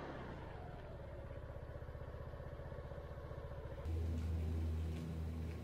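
Kymco KRN motor scooter's engine running with an even, rapid pulse and a whine that falls in pitch at the start. About four seconds in, it gives way abruptly to a louder steady low hum.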